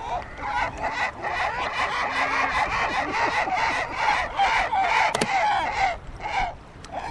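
A flock of gulls calling over one another: many short, quick calls overlapping without a break, with one sharp click about five seconds in.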